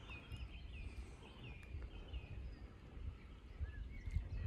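Wind buffeting the microphone with an uneven low rumble, while a bird sings faintly in the background, a string of short warbling phrases in the first half.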